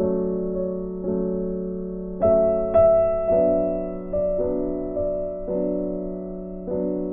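Background piano music: chords struck about once a second, each fading as it rings.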